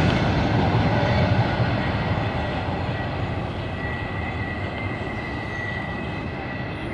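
Tail end of a CSX double-stack intermodal freight train rolling past and away, its wheel and car noise fading steadily. As the rumble dies down, a thin, steady high-pitched squeal from the wheels on the curve stands out.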